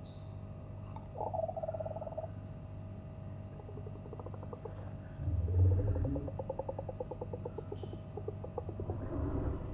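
Ominous horror-film sound design: a steady low hum under a held tone, with fast, creaking, purr-like rattles. A deep swell about five seconds in is the loudest moment.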